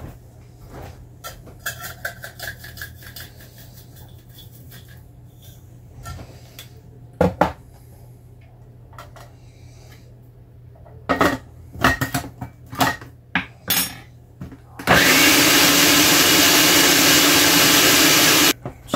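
Electric blender blending a thin guacamole sauce: a few knocks and clicks of handling, then about 15 s in the motor spins up and runs steadily for about three and a half seconds before cutting off.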